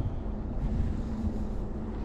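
Wind buffeting the microphone: an uneven low rumble, with a faint steady low hum underneath.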